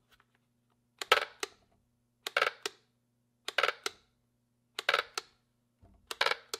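Trigger of a DeWalt 20V cordless mini chainsaw being squeezed and released five times, about once every second and a quarter, each pull a short cluster of sharp clicks with no motor run-up. The motor is locked up and does not spin, from a seized motor or something bound up on it.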